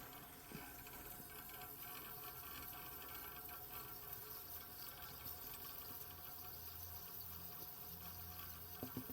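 Faint liquid trickling from a just-shut-down 1985 White Westinghouse window air conditioner, over a low steady hum, with a couple of small clicks near the end.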